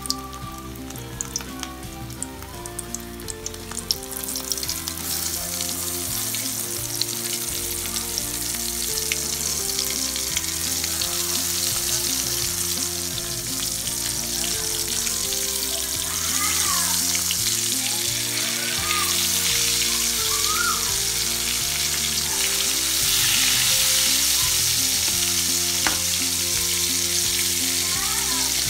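Floured chicken pieces frying in hot oil in a wok: a steady sizzle with scattered pops and crackles, growing louder about four seconds in.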